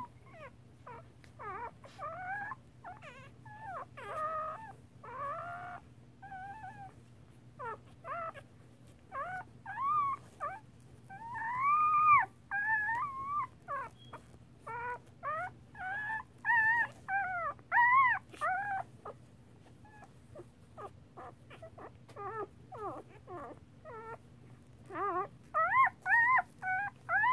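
Newborn standard poodle puppies squealing and whimpering in many short cries that rise and fall in pitch, loudest about twelve seconds in, dropping off around twenty seconds and picking up again near the end.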